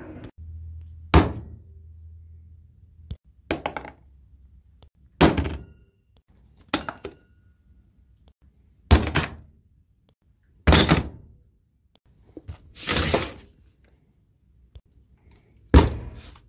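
A series of about eight separate thunks, a second or two apart, as parts and a chainsaw are set down on a cardboard-covered workbench. One of them, past the middle, is longer and scraping.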